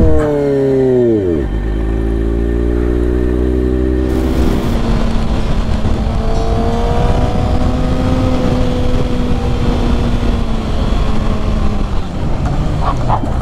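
2021 Kawasaki ZX-6R's inline-four engine running under way. The revs fall sharply over the first second and a half, then hold steady, rising a little midway. A few sharp knocks near the end.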